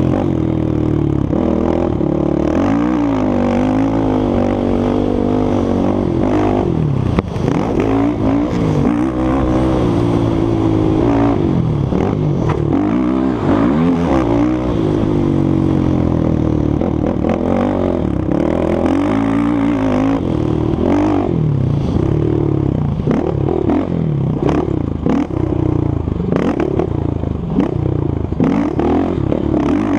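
A 450cc sport quad's single-cylinder four-stroke engine, heard from on board, revving hard on a rough dirt track, its pitch rising and dropping again and again with throttle and gear changes. Clattering knocks come over the bumps, with one sharp knock about seven seconds in.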